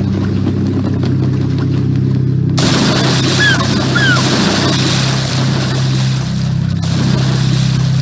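Ocean surf breaking on rocks, a loud rushing wash that comes in about two and a half seconds in and drops away near the end, with two short descending bird calls in the middle. A steady low hum runs underneath.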